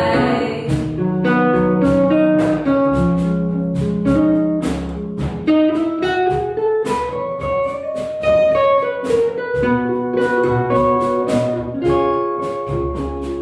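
Instrumental break of an acoustic folk-pop song: an acoustic guitar picks a melody line of plucked notes over a double bass playing low notes underneath, with no singing.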